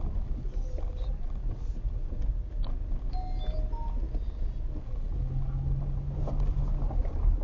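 Vehicle driving slowly, heard from inside the cabin: a steady low rumble of engine and tyres, with a low hum coming in for about two seconds past the middle and a few small ticks and squeaks.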